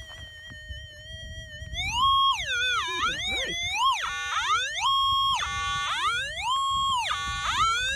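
Minelab SDC 2300 gold detector's audio tone as its coil is swept over a quartz rock. A steady hum climbs to a higher pitch about two seconds in, holds there, then falls, and does this three or four times as the coil passes back and forth: the detector signalling a target in a rock the prospectors think holds gold.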